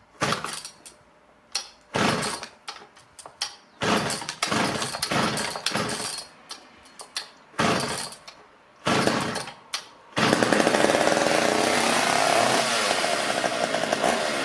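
Sachs Dolmar 105 two-stroke chainsaw being pull-started: a series of short bursts with the pulls, then about ten seconds in it catches and runs steadily, its speed wavering. It is running on fuel pumped in by hand, as the owner believes the carburetor isn't delivering fuel.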